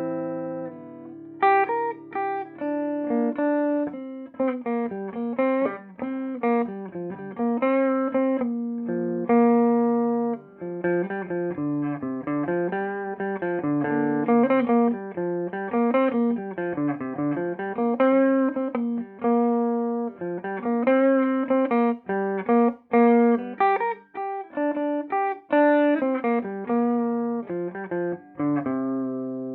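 Electric guitar played clean through a Peavey Bandit 112 TransTube combo amp, on its clean channel in classic voicing with the high-gain input. A chord rings out first, then picked single notes and short melodic runs follow without a break.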